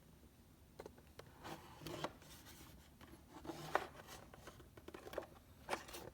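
Handling noises from a cordless phone and its parts being picked up and moved: scattered light clicks and taps, with short stretches of rubbing.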